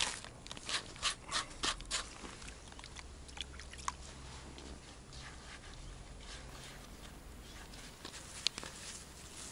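Plastic bait packaging crinkling and rustling in quick clicks for about two seconds, then faint dripping and small clicks as river water is added to a plastic bowl of dough mix.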